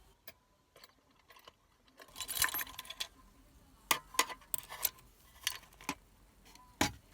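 Small metal hand tools clinking and rattling in a tool case as they are handled. A short burst of clatter comes about two seconds in, then a string of separate sharp clicks, with a louder knock near the end.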